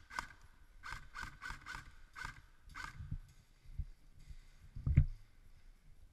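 Airsoft rifle fired in about eight quick single shots over the first three seconds, each short and sharp, muffled by a waterproof camera housing. Then a few dull knocks and thumps of the gun being handled, the loudest about five seconds in.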